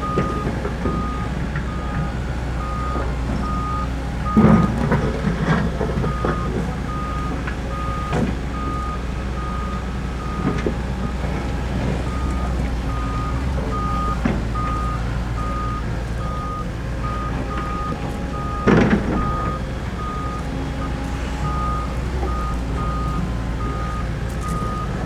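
Doosan DX140LCR-5 excavator running, its diesel engine a steady low rumble under a regularly repeating warning alarm beep. Scattered knocks and clatters, loudest about four and a half seconds and nineteen seconds in.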